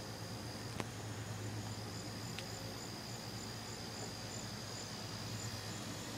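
Insects calling in the evening: a steady high trill with a higher chirp pulsing about two or three times a second, over a low steady hum. There are short clicks about a second in and again a second and a half later.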